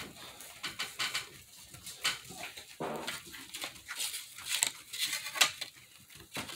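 Crumpled aluminum foil ball rolled and rubbed hard over thin cardboard, giving irregular crinkling scrapes that grow louder in the second half.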